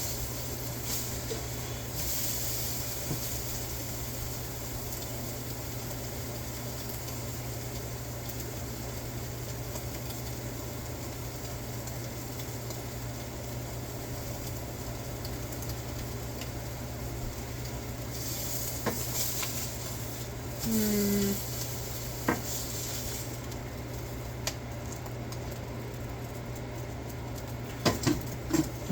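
Birria tacos frying in a pan, a steady sizzle over a constant low hum, with a few sharp clicks of a utensil against the pan near the end.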